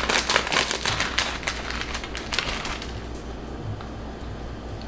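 Plastic instant-ramen wrapper crinkling and crackling as it is torn open and handled, a dense run of crackles that thins to a few scattered ticks after about three seconds.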